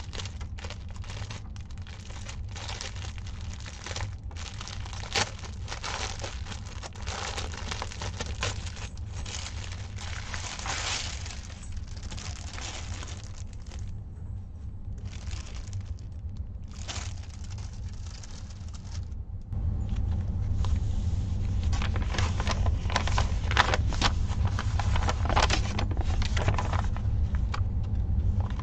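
Thin clear plastic packaging crinkling and crackling in irregular bursts as it is handled and opened. A steady low hum runs underneath and gets louder about two-thirds of the way through.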